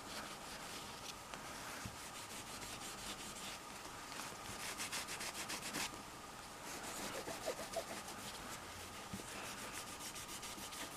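Cloth rubbing back and forth over a phone's glass screen and edges, wiping off excess glue from a freshly re-glued screen: faint, quick rhythmic strokes, busiest about four to six seconds in and again near eight seconds.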